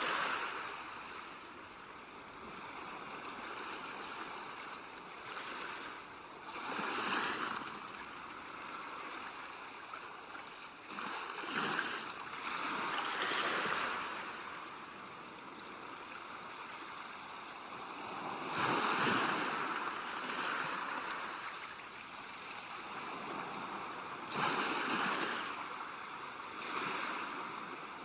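Ocean surf: a steady wash of breaking waves, with a louder wave surging in every several seconds.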